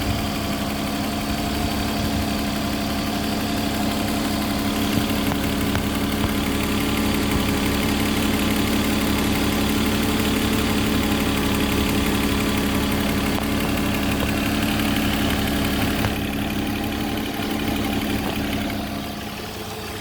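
BMW M50 2.5-litre straight-six idling steadily, with an exhaust leak at the manifold gasket caused by loose manifold bolts. It gets a little quieter near the end.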